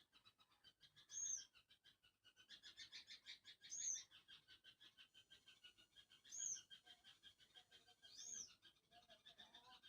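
Faint animal calls: rapid trains of chirping pulses, with a short, louder arched call about every two to three seconds.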